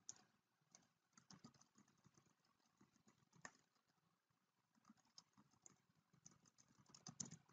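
Faint keystrokes on a computer keyboard: about a dozen unevenly spaced clicks, bunched together near the end.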